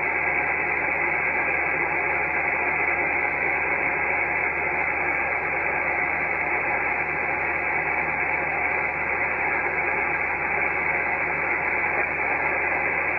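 Icom IC-7300 HF transceiver's receiver giving a steady hiss of 10-metre band static on upper sideband, with no station readable, while the VFO is tuned down the band.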